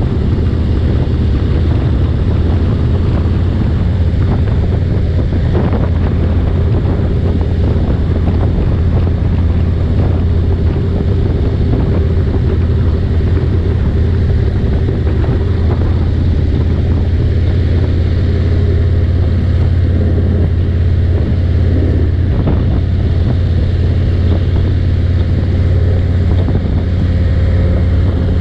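Harley-Davidson Road King's V-twin engine running steadily at highway cruising speed, with a deep, even hum. Wind rushes over the microphone on top of it.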